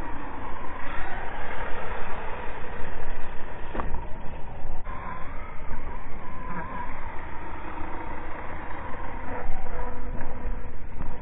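Small dirt bike engine revving up and down as it is ridden over jumps on a dirt track, its pitch rising and falling repeatedly, with a steady low rumble underneath.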